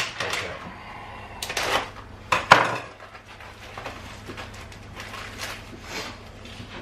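Kitchen items being handled on a worktop and chopping board: a sharp click at the start, a few clattering knocks around two seconds in, the loudest just after, then scattered light ticks and taps.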